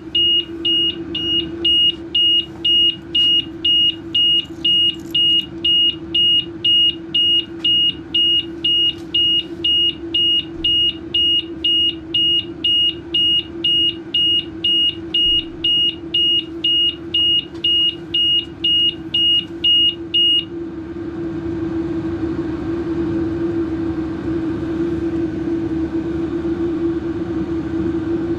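A BMW C400X scooter's anti-theft alarm beeps about twice a second with a single high tone after the battery is reconnected, then cuts off suddenly about two thirds of the way in. A steady low hum continues underneath and gets a little louder after the beeping stops.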